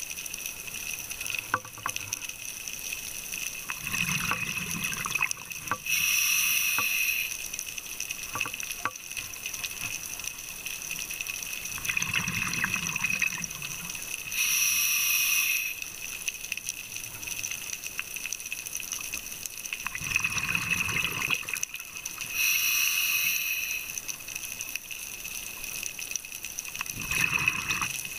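Scuba diver breathing through a regulator underwater. Each breath in gives about a second of hissing from the demand valve, and each breath out a burst of bubbling exhaust, repeating about every eight seconds.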